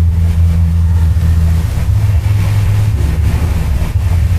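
A loud, steady low-pitched drone like a running engine or motor. Its higher part drops out a little under two seconds in, while the deepest part carries on.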